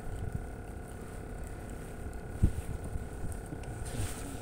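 Wind rumbling on the microphone over a faint steady hum, with one sharp knock about halfway through.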